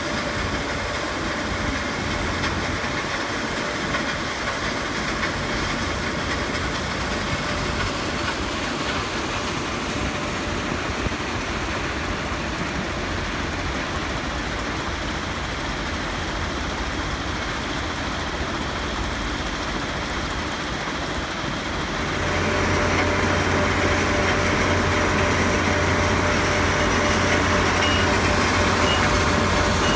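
Plasser & Theurer PM 1000 URM formation rehabilitation machine working the trackbed: a steady din of its engines and machinery. About three-quarters of the way through the sound gets louder and harsher.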